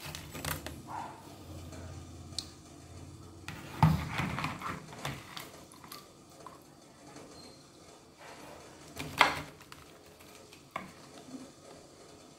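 Lychees being scooped out of a basin of water with a wire mesh strainer and tipped into a plastic colander: scattered knocks and clatters of fruit and strainer with some water splashing, the loudest knocks about four and nine seconds in.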